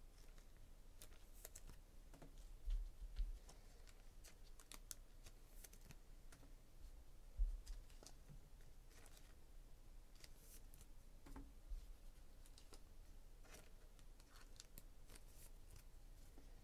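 Quiet handling of trading cards: scattered faint clicks and ticks of cards being moved and set down. There are a few soft low thumps on the table, the loudest about three seconds in and about seven seconds in.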